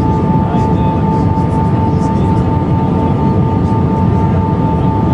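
Airbus A319 cabin noise on approach with flaps extended: a steady rumble of engines and airflow, with a steady high whine running through it.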